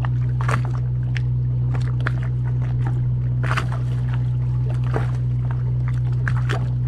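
Steady low hum of the mothership's running machinery, with scattered small splashes and water slaps against the hulls.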